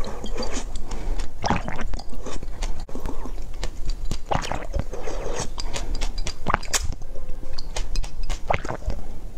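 A person drinking from a glass in gulps: a series of short, wet swallowing and mouth sounds.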